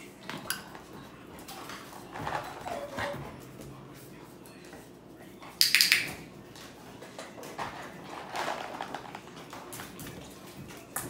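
A dog sniffing and nosing at small handheld scent tins while moving about on a tile floor, with one loud, sharp noise a little past halfway as its nose goes to a tin.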